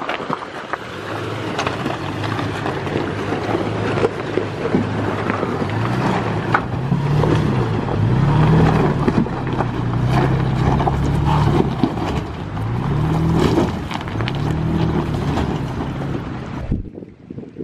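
Toyota Tacoma pickup's engine pulling slowly over loose rock, its pitch rising and falling several times as the throttle is worked. Tyres crunch and pop over stones, and wind buffets the microphone. The sound drops away sharply near the end.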